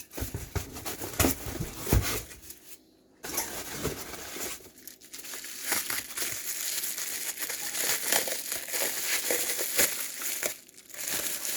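Packing material crumpling and crinkling as a parcel is unwrapped by hand, with a few knocks in the first two seconds and a brief pause about three seconds in.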